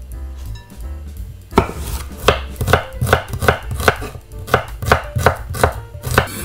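Chef's knife slicing an onion on a wooden cutting board: a steady run of crisp knocks, about three a second, starting about a second and a half in.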